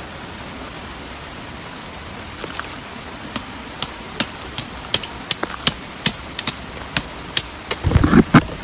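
Steady rain hiss with sharp single taps, which come more and more often from about a third of the way in. Near the end there is a louder, deeper knocking rustle.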